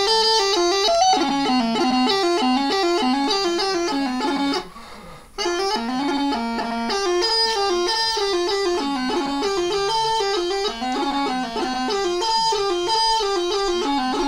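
Bagpipe chanter playing a quick tune of short stepping notes, breaking off for under a second about four and a half seconds in before the tune resumes.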